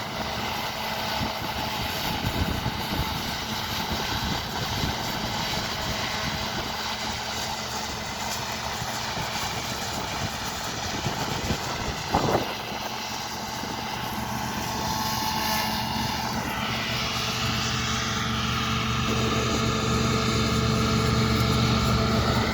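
Combine harvester running steadily, a continuous machine noise with one sharp knock about twelve seconds in. In the last few seconds steady engine tones and a higher whine come up and the sound grows a little louder.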